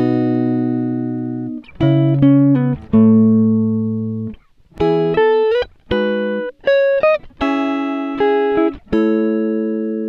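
Background music: guitar chords plucked or strummed and left to ring out, a new chord every second or two.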